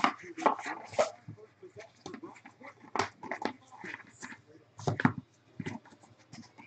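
A cardboard trading-card box and a plastic card holder being handled: a string of sharp taps, clicks and rustles, the loudest near the start and at about one, three and five seconds.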